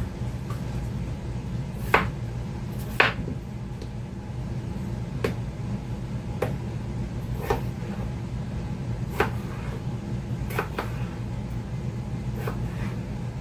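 Chef's knife cutting through a potato and knocking on a plastic cutting board, about ten irregular chops, over a steady low hum.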